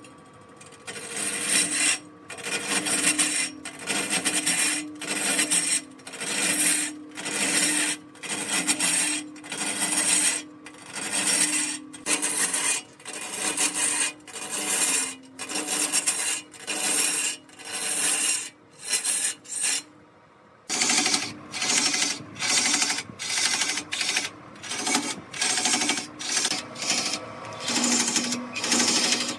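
Hand-held sanding pad rasping against a large wooden log spinning on a lathe, in repeated strokes about once a second over the lathe's steady hum. The sound breaks off for a moment about two-thirds through, then the strokes come a little faster.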